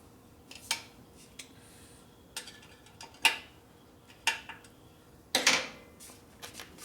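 Metal tools and parts being handled: scattered sharp metallic clinks and taps, roughly one a second, with a longer clatter a little over five seconds in.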